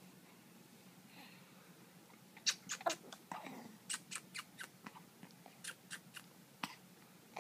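A baby mouthing and sucking on a plush toy: a run of short, irregular lip smacks and clicks starting about two and a half seconds in and lasting about four seconds.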